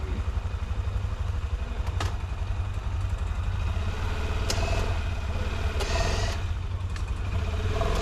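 ATV engine running slowly with a steady low throb as the quad creeps down a steep rocky slope on a line, with a couple of sharp clicks or knocks.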